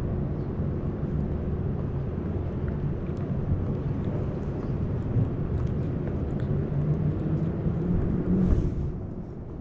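Low, steady rumble of street traffic, with one vehicle's engine hum growing louder near the end and dropping away about nine seconds in.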